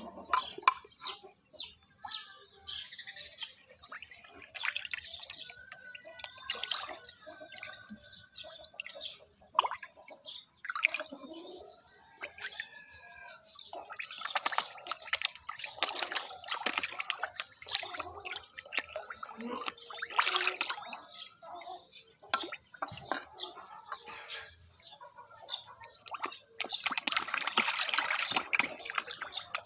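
Feeding fish splashing and slurping at the water surface as they crowd a spoon of food, an irregular rapid patter of wet smacks and drips that is busiest near the end.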